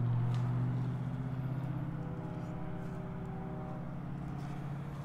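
A steady low machine hum, a motor or engine running, with a few faint higher tones joining in about two seconds in.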